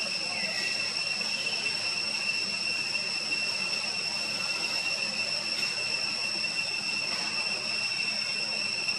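Steady high-pitched drone of an insect chorus in tropical forest trees: a continuous whine on several fixed tones that never breaks. A faint short falling call sounds just under half a second in.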